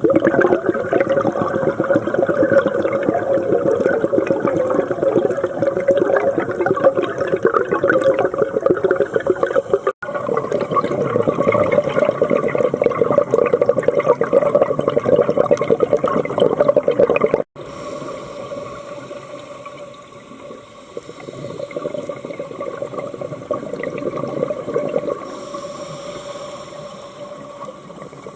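Scuba diver breathing through a regulator underwater: long rushes of bubbling exhalation. The breathing is loud for the first 17 seconds or so, then drops suddenly and goes on more quietly.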